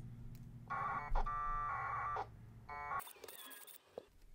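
Packet radio data bursts: warbling modem tones from the radio, one burst of about a second and a half and a shorter one about half a second later, as the disconnect frames are exchanged with the distant station. A brief hiss follows the second burst.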